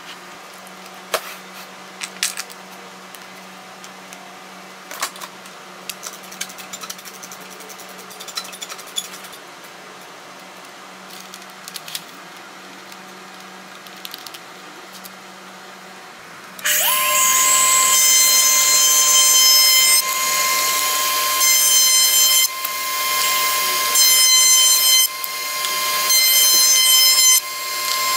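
Table-mounted router switching on about two-thirds of the way in and running at a steady high-pitched whine. Its loudness drops and comes back several times as walnut strips are fed past the bit. Before that, only light clicks and knocks from setting up the fence and featherboard.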